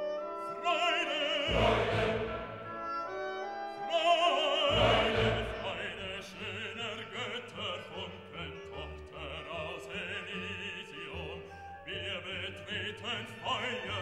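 Background classical music: an operatic voice sings with vibrato over an orchestra.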